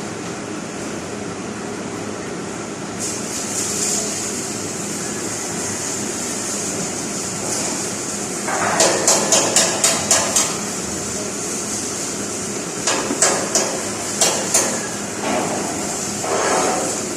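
Hammer striking metal, most likely chipping slag off a flux-core weld. There is a quick run of about eight strikes, about four a second, in the middle, then scattered strikes, over a steady hiss that turns brighter about three seconds in.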